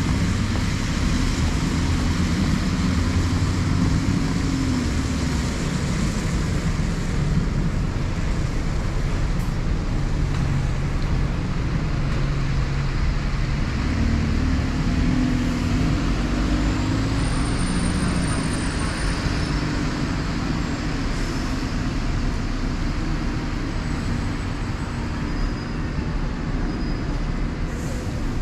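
Road traffic at a bus station: red double-decker bus engines running and tyres hissing on the wet road, the engine drone swelling as a bus passes a few seconds in and again around the middle.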